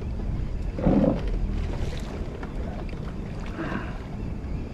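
Wind buffeting the microphone and sea water moving against the hull of a small fishing boat, a steady low rumble, with a short muffled sound about a second in.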